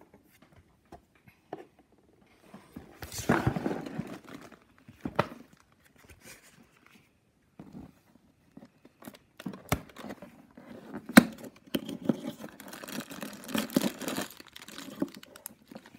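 Cardboard advent calendar being handled and a perforated door torn open: scattered taps and scrapes, a burst of tearing about three seconds in, a couple of sharp clicks, and a longer stretch of rustling and crinkling in the last few seconds.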